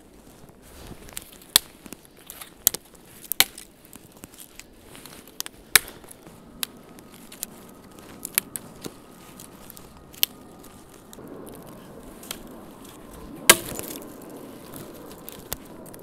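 Dry dead branches and twigs snapping as they are broken off by hand: a series of sharp cracks at irregular intervals, the loudest about three and a half seconds before the end.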